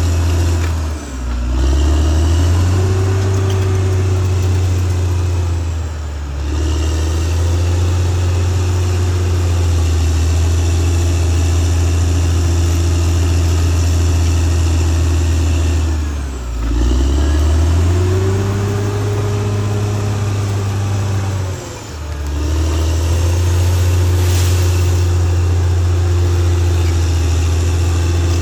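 Caterpillar D6R XL bulldozer's diesel engine running steadily under load, its pitch dipping briefly and climbing back up four times as the revs drop and recover.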